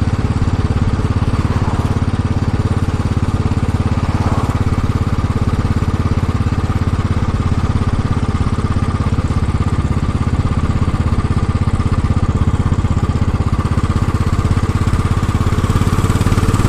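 Royal Enfield Classic 500's single-cylinder engine running at a steady, even pace while the bike is ridden, a continuous rapid thudding of firing pulses.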